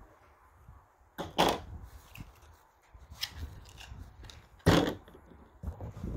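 Throwing knives hitting a cardboard target: two sharp thunks, one about a second in and the other about three and a half seconds later.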